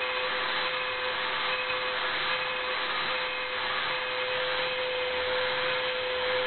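Dremel Multi-Pro 350 rotary tool running steadily at about 20,000 RPM with a steady whine, its 1.4 mm diamond-coated bit drilling sea glass in quick up-and-down strokes under water.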